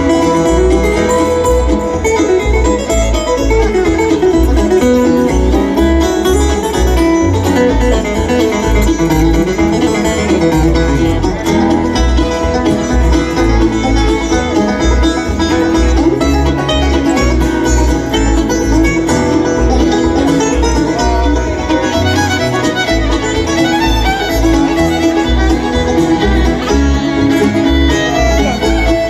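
Live bluegrass band playing an instrumental break: fiddle, banjo and guitar over a steady bass beat.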